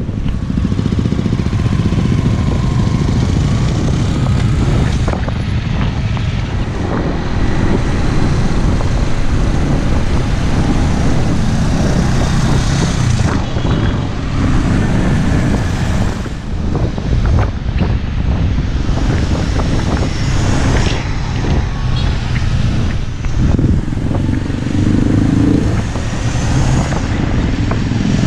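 Motorcycle engines running in traffic, heard from a camera riding on a motorcycle, under steady wind noise on the microphone.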